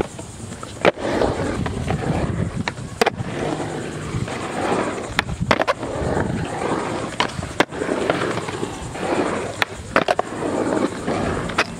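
Skateboard wheels rolling over a concrete bowl, the rolling noise swelling and fading as the skater carves, with several sharp clacks of the board through the run.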